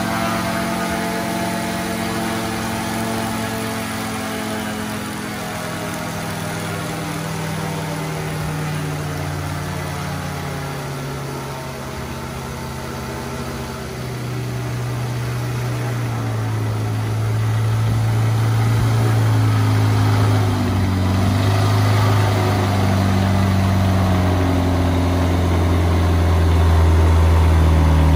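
Rotax 912ULS flat-four aircraft engine running on the ground with the propeller turning, during a static run-up to check propeller pitch by RPM. Its speed eases off slightly at first, then rises in steps from about halfway through and grows louder toward the end.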